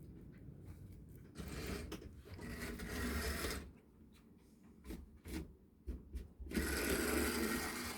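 A model train locomotive's small electric motor and gears whirring as it runs, poorly, once at about 1.5 to 3.5 seconds and again steadily from about 6.5 seconds, with a few light clicks in between.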